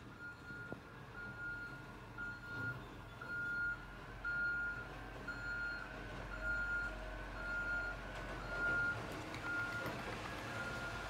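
Garbage truck reversing: its backup alarm beeps steadily about once a second over the low rumble of the truck's engine.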